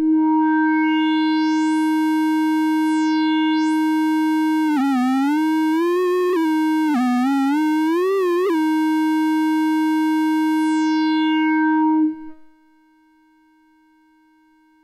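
A circuit-bent toy keyboard synth holds one buzzy note. It grows brighter and duller as the filter cut-off is turned, then the pitch swoops up and down a few times between about five and eight seconds as the modulation depth is turned up. The note stops about twelve seconds in.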